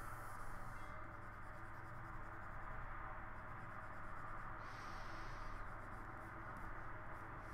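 Faint scratching of a stylus drawing short strokes on a pen tablet's surface.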